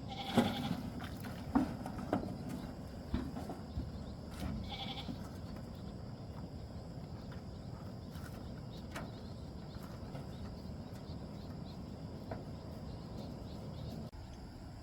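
Two short bleat-like animal calls about four seconds apart, over a steady high insect drone, with a few light knocks in the first few seconds.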